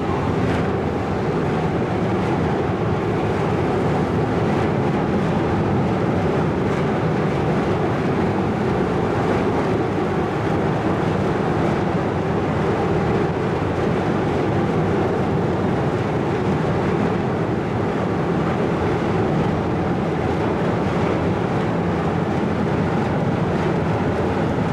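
Steady rumble and hum of a large car ferry's machinery running at the quay, even and unbroken, with a few faint steady tones in it.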